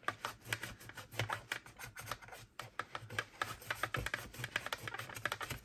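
Cloth scrubbing hard plastic in quick, irregular rubbing strokes with small clicks, as a Thermomix's lid-locking arm housing is wiped clean of degreaser and the food residue that made the arm stick.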